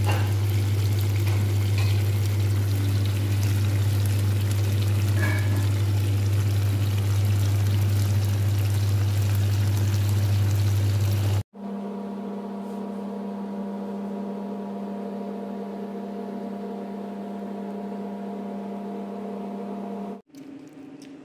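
Sardine and tomato sauce simmering in a frying pan: a steady bubbling hiss over a loud low hum. About eleven seconds in it cuts off suddenly, and a quieter steady hum made of several pitches follows.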